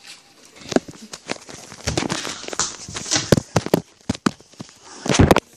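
Handling noise from a phone or camera being moved and covered: rubbing and scraping against the microphone with scattered knocks and clicks, and a louder rustle about five seconds in.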